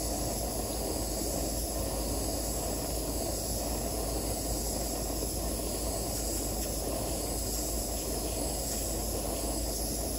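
Butane micro torch running steadily, its flame held on a fine silver wire ring to heat it to fusing temperature.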